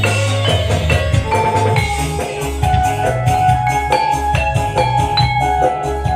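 Loud music played through a sound system during a sound check: heavy, pounding bass under a quick melody of short, bright pitched notes like struck mallet percussion.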